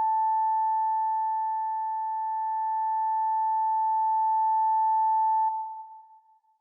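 Synthesized electronic monitor tone: one steady, unbroken beep held for about five and a half seconds, the flatline of a dying android's heartbeat. It stops with a soft click and a short fading tail.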